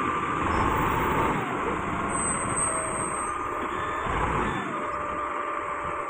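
Hindustan wheel loader's diesel engine running steadily as it works its bucket into a pile of crushed sand, with a whine that slides down and back up in pitch a few times.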